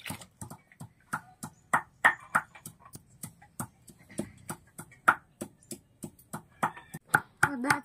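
Stone roller rocked on a stone grinding slab (sil-batta) to grind a paste, making sharp, irregular clacks of stone on stone, a few a second.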